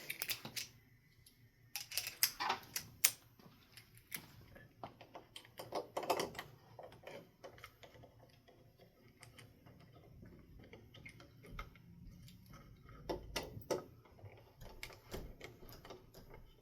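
Irregular clicks, taps and light metallic clinks of screws and tools while a ceiling fan's metal mounting bracket is unscrewed and taken down, in clusters with pauses between.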